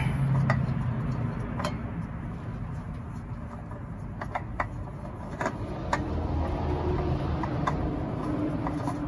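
Light, irregular clicks and taps of fingers spinning a new Mopar oil filter by hand onto its threaded mount, over a steady low rumble.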